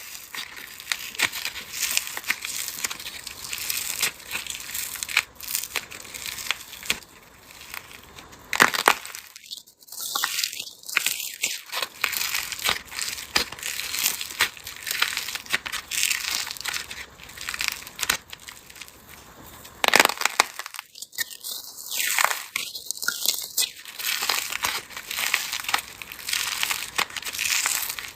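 Soap being crushed, a dense run of dry, crisp crackling and crunching, broken by two short pauses.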